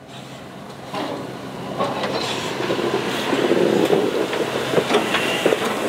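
Steam locomotive passing close by, growing steadily louder as it nears, with a run of knocks and clanks from its wheels and running gear.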